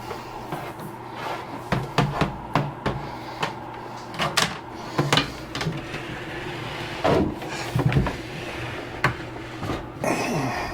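Irregular clicks and knocks of hard plastic being handled, as cables are routed and plugged in between the filament units, over a steady low hum.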